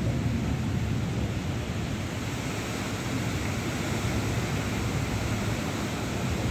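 Heavy rain falling in a steady rush, with a low rumble of wind under it.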